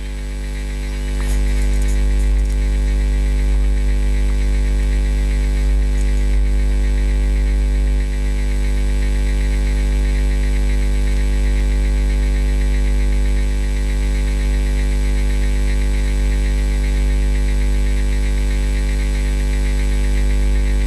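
Loud, steady electrical mains hum: a low buzz with a stack of overtones, swelling up over the first second and then holding unchanged.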